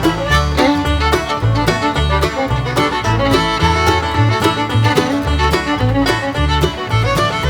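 Background music: upbeat bluegrass-style fiddle with banjo and guitar over a steady bass beat.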